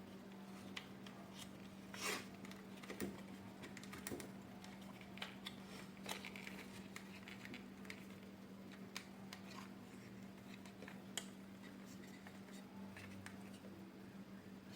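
Irregular light clicks and taps of hard plastic parts being handled and fitted together while a vacuum cleaner is assembled, over a faint steady low hum.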